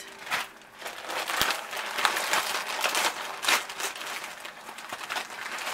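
Clear plastic bag crinkling and rustling in irregular bursts as yarn cakes are handled and pulled out of it.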